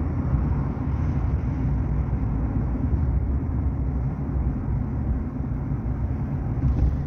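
Steady low road and engine rumble heard inside the cabin of a car driving along a highway.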